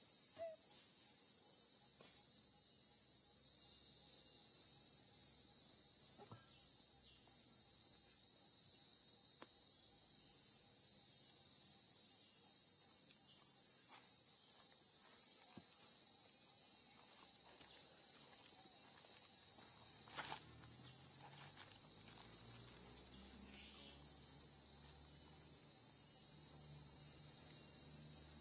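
Steady high-pitched insect chorus, an even unbroken drone, with a few faint clicks, the clearest about twenty seconds in.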